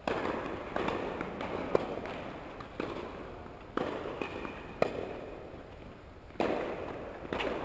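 Tennis balls being hit and bouncing: a string of sharp pops, each echoing and fading in a large indoor tennis hall.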